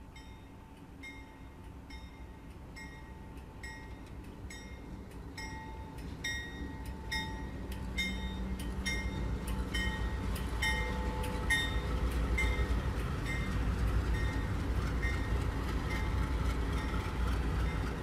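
CSX diesel freight locomotives rumbling past at street level, the low engine and wheel noise growing steadily louder as the train comes on. A grade-crossing bell rings about twice a second throughout.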